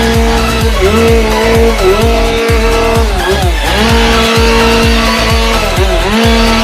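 Husqvarna T540iXP battery top-handle chainsaw running at full speed, its whine dipping briefly in pitch several times as it cuts, over electronic dance music with a steady beat.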